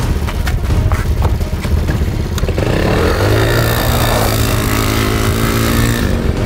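Small quad bike (ATV) engine running rough with a few sharp clicks, then revving up about two and a half seconds in as it pulls away on gravel, and running steadily at speed.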